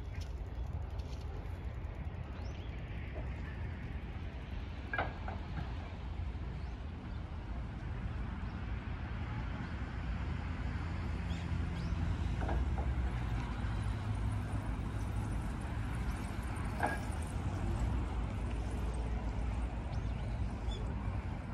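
Wind blowing on the microphone, a steady low rumble, with a few faint brief sounds in the distance.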